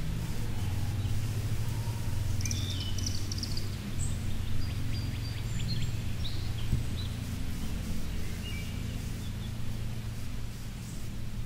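Birds chirping and twittering in short high calls over a steady low hum.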